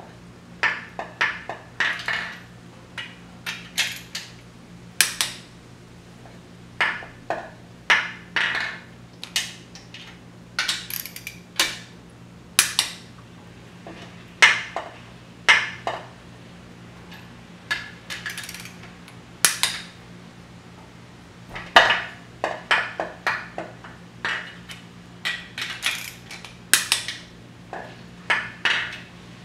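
Irregular sharp metallic clicks and clinks, sometimes several in quick succession, from socket wrenches and a torque wrench working the case-half nuts of a VW Type 1 engine as they are tightened to 15 foot-pounds.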